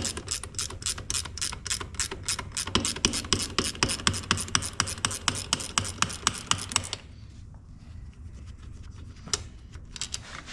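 A 15 mm ratcheting wrench clicking in a quick even rhythm, about four clicks a second, as it backs out a brake caliper bolt. The clicking stops about seven seconds in, leaving only a few scattered clicks.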